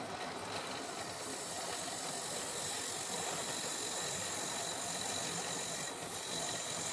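Wood lathe running while a thin homemade parting tool, made from an old circular saw blade, cuts a narrow groove into the spinning wooden workpiece: a steady scraping hiss that grows a little louder about a second in, with a thin high tone.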